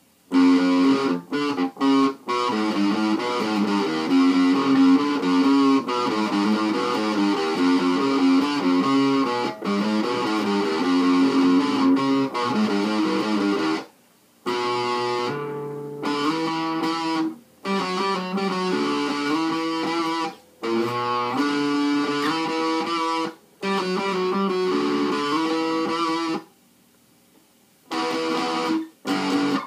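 Heavily distorted electric guitar playing metal riffs through a Line 6 Uber Metal distortion pedal into a small 10-watt Fender amp, with the riffs cut off short several times; a longer silent gap comes a few seconds before the end.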